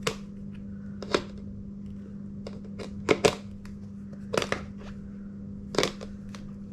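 Irregular sharp clicks and knocks, about six of them, as a detachable roller-skate shoe is pushed down onto its base plate's spring-loaded locking mechanism and fails to latch, over a steady low hum.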